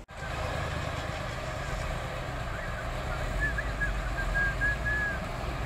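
Ural 6x6 truck engine idling steadily, a deep low rumble that swells slightly after about three seconds, with a few short high chirps over it in the middle.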